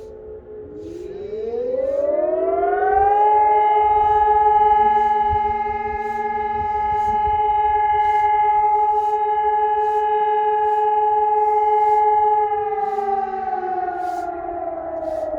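Outdoor warning sirens sounding in a scheduled siren test. A steady two-note tone winds up about a second in, holds level for about nine seconds, then starts to wind down near the end. At the very start the tail of an earlier tone is still falling away.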